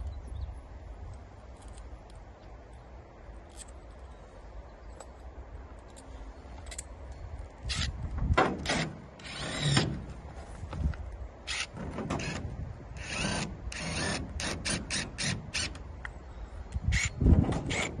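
Cordless drill run in short bursts on a greenhouse's polycarbonate end panel, fixing it to the aluminium frame. A few light clicks and handling knocks first, then the drill starts about eight seconds in in stop-start bursts, a couple lasting about a second, the loudest near the end.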